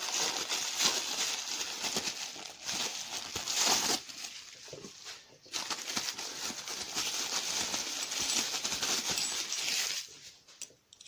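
Packaging being rustled and crinkled by hand while unwrapping items, with a short lull about four seconds in; the crinkling stops about ten seconds in.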